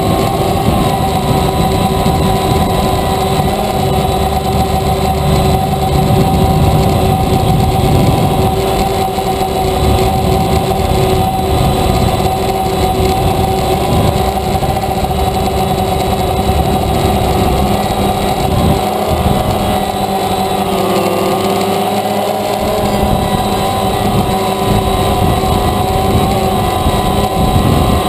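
DJI Phantom quadcopter's motors and propellers whining steadily, heard from the GoPro carried on the drone: several held tones that waver slightly together, over a low rumble.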